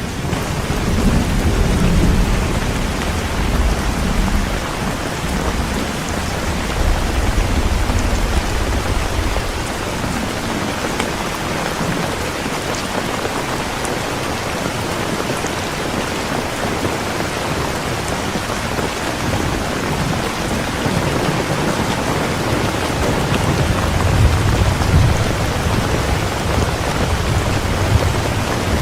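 Steady rain pouring, with low rolls of thunder rumbling in the first few seconds and again near the end.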